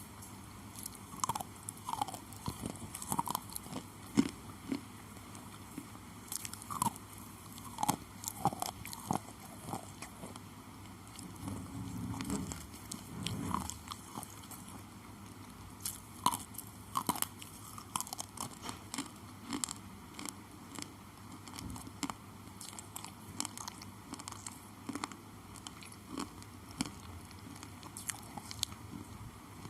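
Thick slate pencils being bitten and chewed close to the microphone: sharp, brittle crunches come irregularly throughout, with a spell of denser grinding chewing in the middle.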